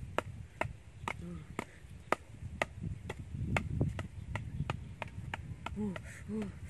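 Knife or cleaver chopping on a cutting board, in steady strokes about two a second.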